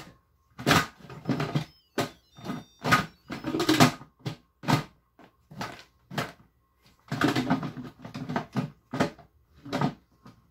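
Irregular handling noises as food is worked into an Instant Pot's steel inner pot: short rustles, scrapes and knocks, one or two a second, with a longer run of them about seven seconds in.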